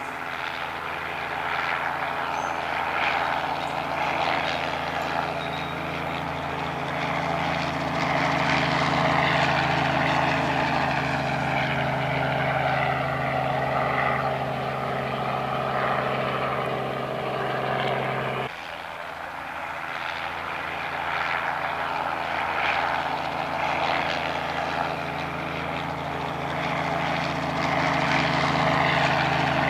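Small two-bladed helicopter's rotor and engine running steadily as it flies in low and hovers near the ground. It gives a steady hum, and the tone changes abruptly about two-thirds of the way through.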